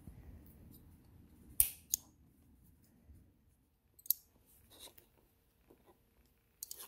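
Several short, sharp snips and clicks of thread being cut as bad stitches are unpicked from a mask seam, the loudest about a second and a half in. The sewing machine is not running.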